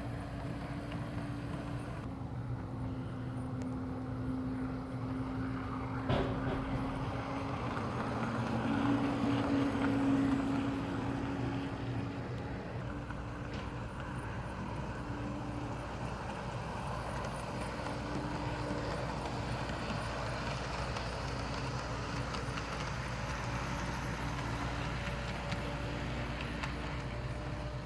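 O-scale model train running along the track: a steady mechanical hum with a held tone that shifts slightly in pitch and comes and goes. There is a single sharp click about six seconds in.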